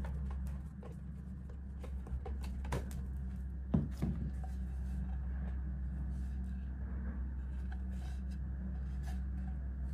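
Steady low hum with scattered light clicks and knocks, typical of handling an object; one louder knock comes about four seconds in.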